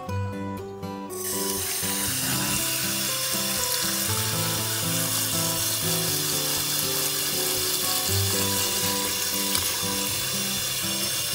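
Kitchen tap running into a pot of chopped coconut palm heart in a steel sink: a steady, even hiss that starts about a second in. Background music plays underneath.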